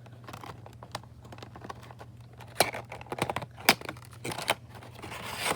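Model box packaging being opened by hand: scattered clicks and rustles, with sharp snaps about two and a half and three and a half seconds in, and a brief scrape near the end.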